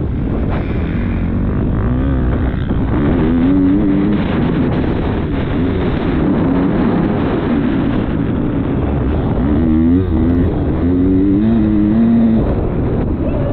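Motocross bike engine being ridden hard, recorded on an on-board action camera. The engine pitch climbs and drops as the throttle is worked, in two spells of revving: around three to four seconds in, and again from about ten to twelve seconds.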